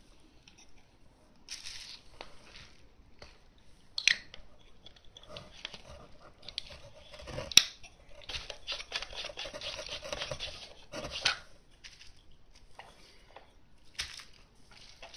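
Handling noise as a lens is unscrewed from a Canon VI L rangefinder's thread mount: rustling and scraping of hands and metal, with a few sharp clicks. The sharpest click comes about seven and a half seconds in, followed by a few seconds of dense scraping.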